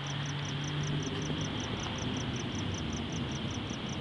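Crickets chirping at night in an even rhythm, about three to four chirps a second, over a low steady background hum.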